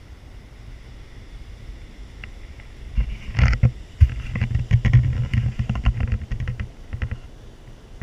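Wind buffeting the microphone of a pole-mounted action camera, a low rumble, with a burst of knocks and rubbing from the camera being handled and turned, loudest from about three to seven seconds in.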